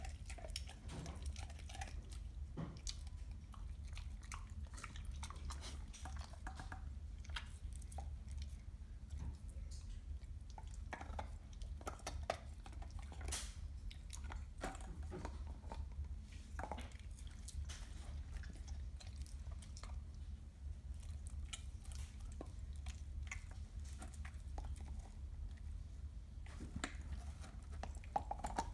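Dog gnawing a raw bone: irregular clicks, crunches and scrapes of teeth on bone throughout, over a steady low hum.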